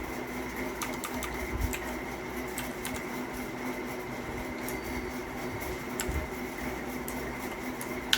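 Steady mechanical hum with a few faint, scattered clicks of keys being pressed on a Havit KB498L mechanical keyboard with clicky blue switches.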